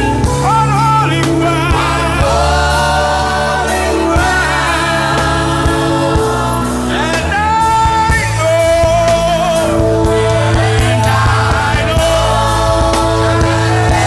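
Gospel music with voices singing long held notes with a wavering pitch over a steady low bass accompaniment.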